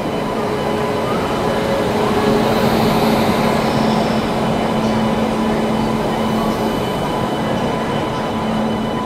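WAP-7 electric locomotive and its train rolling slowly into the platform close by: a steady rumble of wheels on rail with a steady hum running through it.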